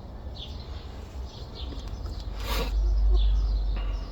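Small birds chirping: short, high, falling chirps repeated about every half second. Under them runs a low rumble that swells about two and a half seconds in, with a brief rustle.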